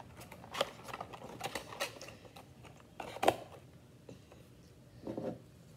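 A scatter of light clicks and taps over the first couple of seconds, a sharper, louder one about three seconds in, and a brief low vocal sound near the end.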